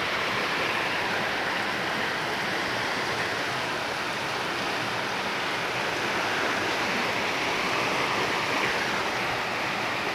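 Muddy floodwater rushing steadily through a house yard, a continuous even rushing noise.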